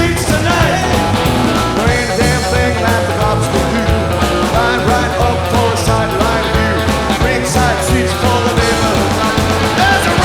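Rockabilly band playing live, mostly instrumental: a driving bass line under electric guitar and drums.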